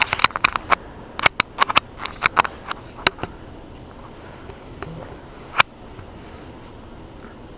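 English bulldog snoring in its sleep: a quick run of sharp wet clicks in the first three seconds, then a long hissing breath about four to six seconds in, ending in one loud click.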